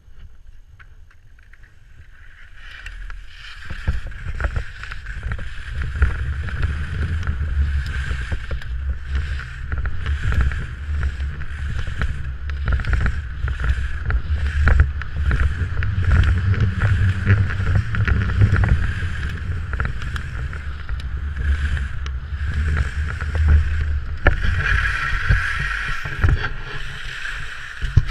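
Skis carving and scraping on firm snow through a run of turns, with heavy wind rumble on the camera's microphone at speed. It is quieter for the first couple of seconds and grows louder as the skier picks up speed.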